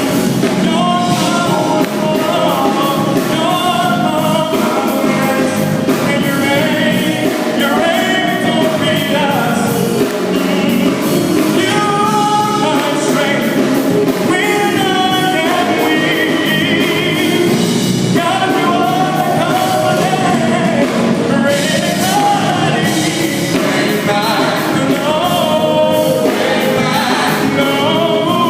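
A live gospel song, a voice singing over a full band with a steady drumbeat, recorded loud.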